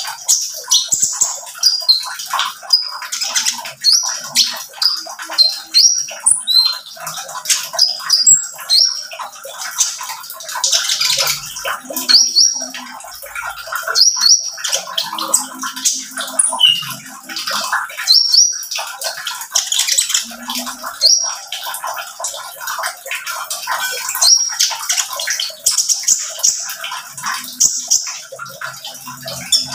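Male Van Hasselt's sunbird (kolibri ninja) singing: a fast, high twitter of chirps and ticks, with short rising notes repeated every second or so.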